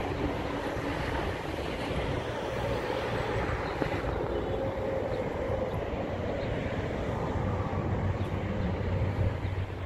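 Steady noise of motorway traffic passing, cars and trucks blending into one continuous sound with a low hum underneath.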